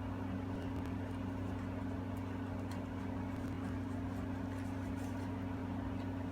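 Steady low machine hum, like a motor or appliance running, with a few faint light clicks.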